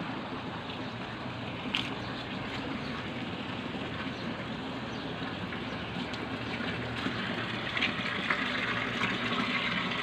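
Water running and splashing steadily, as into a fish pond, growing a little louder near the end.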